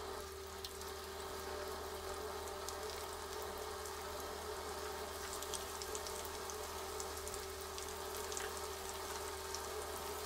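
Potato chunks deep-frying in hot oil in a frying pan: steady sizzling and bubbling with many small crackles, over a steady low hum.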